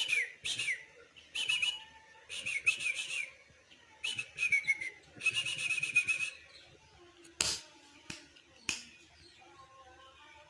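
Caged songbird whistling a run of short phrases, most gliding downward in pitch, with a few sharp clicks near the end.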